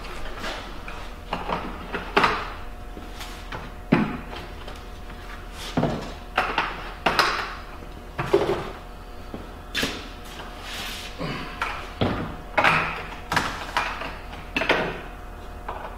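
Plastic fuel jugs being handled on a wooden workbench: irregular knocks and clunks as the jugs are picked up, set down and their caps worked, over a faint steady hum.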